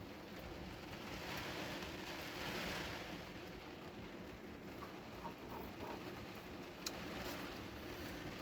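Faint steady hiss and rustling as the speaker cabinet is handled, with a few light taps and one sharp click near the end.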